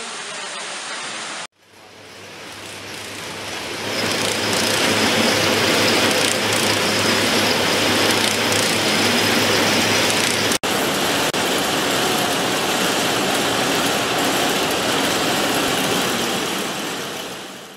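Textile spinning and spool-winding machines running in a wool mill: a dense, steady mechanical clatter over a low hum, fading in about two seconds in and out at the end. Before it, water splashing onto a small water wheel cuts off abruptly about one and a half seconds in.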